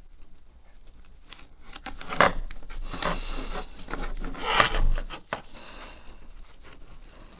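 Hands working a foam gasket strip around a plastic trunk insert: rubbing and scratching handling sounds, with a few louder scrapes about two, three and nearly five seconds in.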